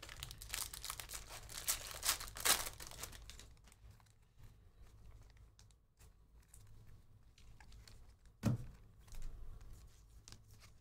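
Plastic foil wrapper of a Bowman Draft jumbo pack of baseball cards being torn open and crinkled, densest in the first three seconds, followed by quieter handling of the card stack. A single thump comes about eight and a half seconds in.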